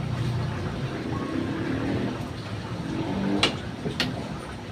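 A metal spoon scraping and clinking against a wok as sauce is scooped out, with two sharp clinks about three and a half and four seconds in, over a steady low rumble.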